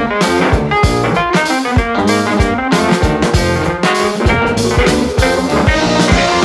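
Live band playing an instrumental passage: electric guitar over a drum kit, with keyboard, no singing.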